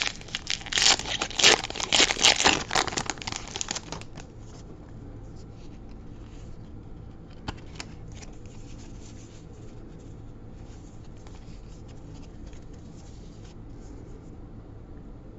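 Foil booster pack wrapper being torn open and crinkled, loud for the first four seconds, then only faint rustling of the cards being handled.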